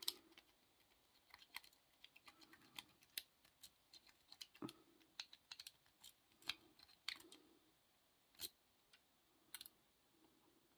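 Faint, irregular metallic clicks and light scrapes of a lock pick being rocked in the keyway of a laminated padlock held in the hand.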